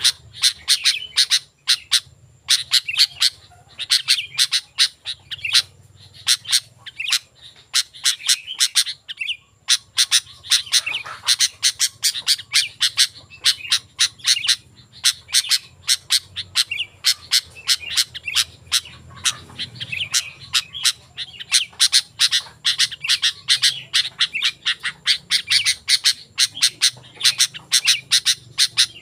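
Sooty-headed bulbul calling without a break: rapid sharp chirps and short squawking phrases, many a second.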